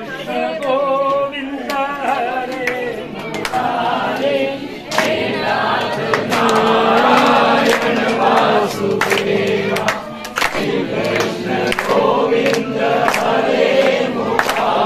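A crowd of men and women singing a devotional Krishna bhajan together in unison, with sharp claps keeping time about every half second.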